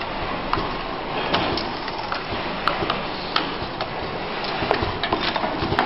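Automatic four-station soldering machine running, its moving parts giving off irregular clicks and knocks about once or twice a second over a steady background noise.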